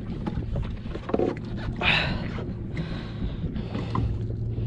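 Small fishing boat's outboard motor idling with a steady low hum, under wind on the microphone, with a short rushing noise about two seconds in.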